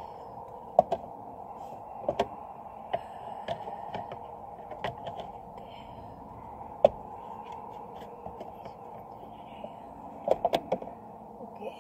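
Keys and a metal key ring being handled, with scattered sharp clicks and small metallic taps and a quick cluster of them near the end, as a key is worked onto the ring. A steady muffled hum lies beneath.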